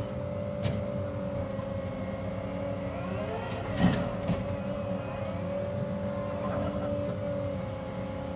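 Cat 306 excavator's diesel engine running steadily with a constant high tone over it. A few sharp knocks and cracks come through, the loudest about four seconds in.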